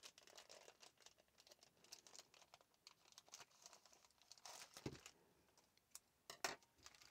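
Faint crinkling and rustling of a clear plastic packaging bag as it is cut open with scissors and a multimeter is worked out of it, with louder rustles about two thirds of the way through and again near the end.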